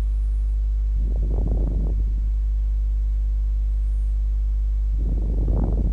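Steady electrical mains hum on the recording, a low buzz with evenly spaced overtones. Two brief muffled noises rise over it, about a second in and again near the end.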